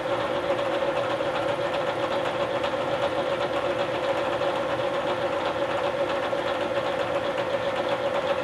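Bridgeport vertical milling machine running, its spindle giving a steady mid-pitched hum while an end mill cuts a pocket in an aluminium block as the table is hand-fed along X.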